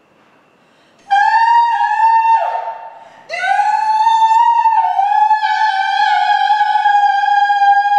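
A woman's voice sounding one high, wordless note with bright overtones. It is held for about a second and then slides down and away. A little after three seconds she scoops up into it again and holds it steadily, dropping slightly in pitch about halfway through.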